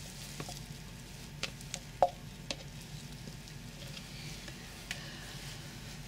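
A spoon scraping and tapping against a container while the last of the soap batter is worked out of it, with a few sharp clicks, the loudest about two seconds in, over a steady low hum.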